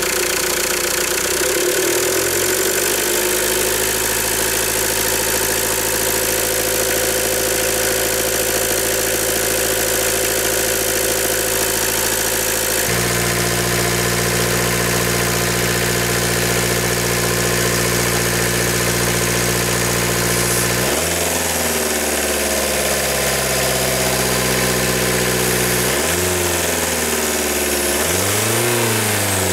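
Diesel car engine idling steadily, then revved in several rising and falling runs through the last third while aerosol EGR valve cleaner is sprayed into its air intake.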